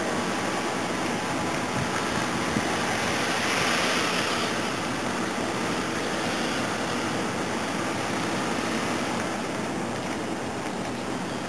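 Steady road and wind noise inside a moving car's cabin, swelling briefly about four seconds in.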